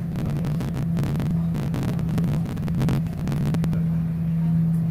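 Moving passenger train heard from inside the carriage: a steady low hum, with a fast clatter of clicks and knocks over the first three and a half seconds, after which the hum runs on alone.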